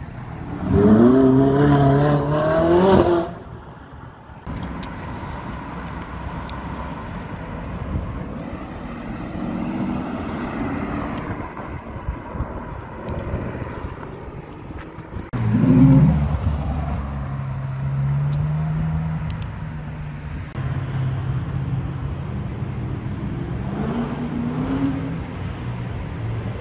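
Ferrari 458's V8 accelerating hard away from a corner, its pitch climbing through the revs for about three seconds. Then comes city traffic with other cars' engines. A second sharp engine rev bursts out about fifteen seconds in and settles into a steady drone, and a shorter rising rev follows near the end.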